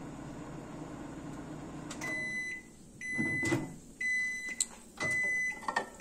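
Toshiba EM925A5A-SS 900 W countertop microwave running with a steady hum that stops about two seconds in. Its beeper then sounds the end of the cooking cycle: a high beep about once a second, five times, with a knock near the second beep.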